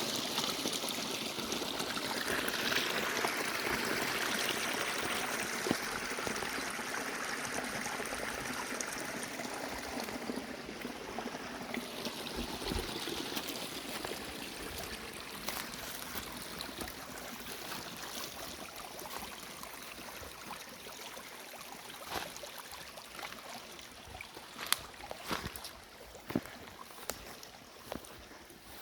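Mountain stream or spring water running steadily, slowly growing fainter. Sharp clicks come more and more often in the last few seconds.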